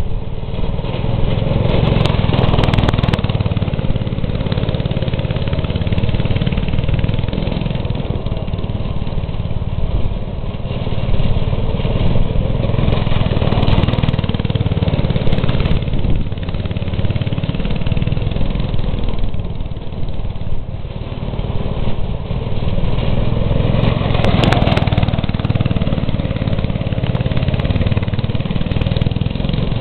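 Small go-kart engine running, its revs rising and falling as the kart is driven, with the sound swelling louder about every eleven seconds.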